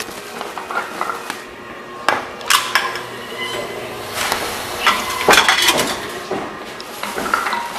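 Empty drink bottles and cans clinking and knocking as they are handled and fed into a reverse vending machine, with several sharp knocks.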